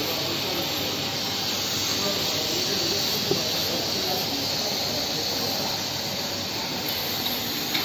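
Steady hiss of running machinery, unchanging throughout.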